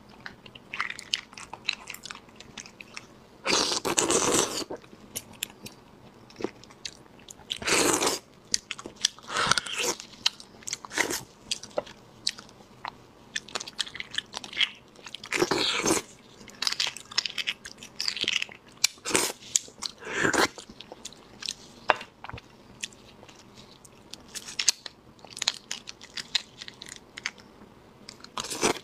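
Close-miked mouth sounds of eating spicy roasted beef bone marrow: wet chewing with many small clicks, and louder noisy bursts about 4, 8, 15 and 20 seconds in.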